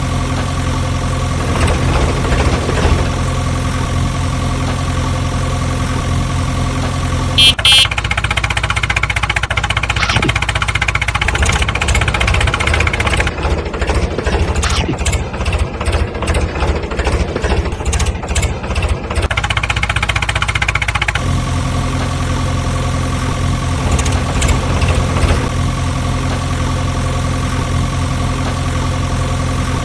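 Vehicle engine idling steadily. About a third of the way in it changes to a rougher, busier engine sound for some thirteen seconds, then settles back to the steady idle.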